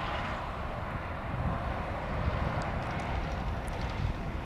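Steady outdoor background noise: an even hiss with an uneven low rumble of wind on the microphone, and a few faint ticks in the second half.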